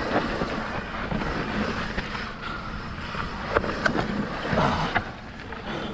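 Mountain bike riding down a rough dirt trail: steady tyre noise over dirt and rock with scattered knocks and rattles from the bike, and wind on the microphone.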